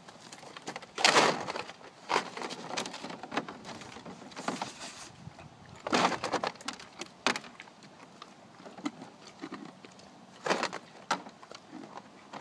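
Two horses working at a block of ice in a plastic paddling pool with their muzzles: irregular scrapes, crunches and knocks of ice against the plastic, with a few louder noisy bursts, the loudest about a second in and again around six seconds in.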